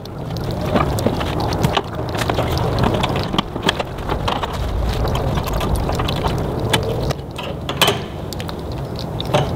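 Scattered sharp plastic clicks and knocks as a Ring Floodlight Cam is handled and lifted off its wall mounting plate, over a steady low rumble.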